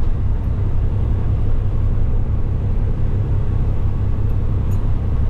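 Loaded Kenworth T880 dump truck driving, heard inside the cab: a steady low engine and road drone.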